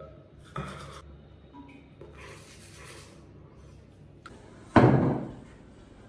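A single loud thud about three-quarters of the way through, dying away over about half a second. A few short rustling and scraping noises come before it.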